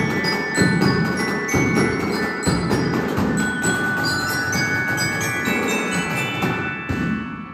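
Marching jazz band playing: glockenspiels ring out a melody of struck notes over a steady drum beat, and the tune ends and dies away near the end.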